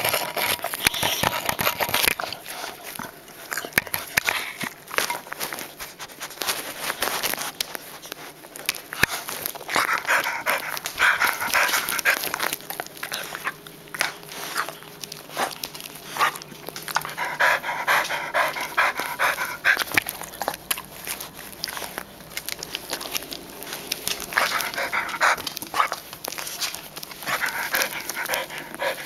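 An old dog panting right at a collar-mounted microphone, in repeated spells, amid a constant patter of clicks and knocks from the camera and collar rubbing and moving as she searches.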